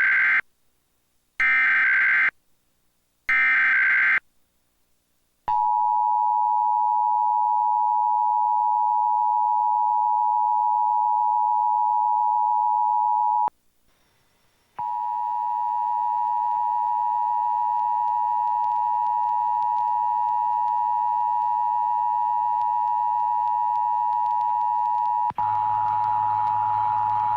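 Emergency Alert System test from a DASDEC-II encoder: three SAME header data bursts, harsh buzzy squawks about a second apart, then the two-tone EAS attention signal held steady for about eight seconds. After a brief silence the two-tone attention signal sounds again, over a faint hum and hiss that gets louder near the end.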